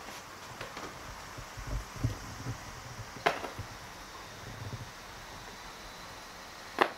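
Quiet room ambience with a steady hiss and soft low thumps of movement. Two sharp clicks come about three and a half seconds apart, the second the loudest.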